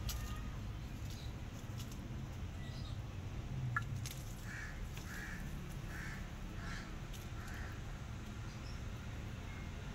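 A crow cawing, a run of about six caws in quick succession about half a second apart, midway through.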